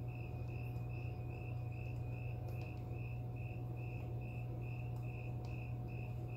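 Steady low hum of running aquarium equipment, with the air stone bubbling. Over it, a high, thin chirp repeats evenly about four times a second.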